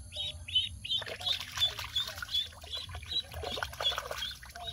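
A young duck used as live bait splashing and thrashing in shallow ditch water, starting about a second in. A steady run of short high chirps, about three a second, goes on throughout.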